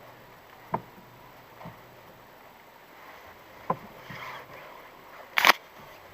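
Sharp single clicks from a Kia Rio's steering column, a few at uneven intervals, then a louder double knock near the end. The knock comes from between the pedals and the steering wheel, not the steering rack, and the owner suspects the steering shaft's universal joint.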